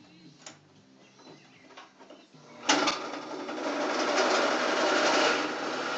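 Quiet at first; a little under halfway in, a grinder starts grinding steel with a loud, steady rasp as a drill bit is sharpened.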